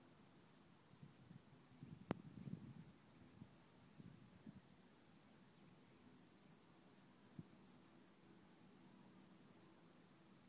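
Near silence: faint scratchy handling rustle with a sharp click about two seconds in, over a faint high-pitched ticking about three times a second.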